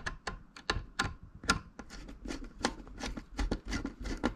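A small screwdriver tightening a wire into the screw terminal block of a 240 V to 12 V converter: a run of irregular light clicks and taps, about three or four a second.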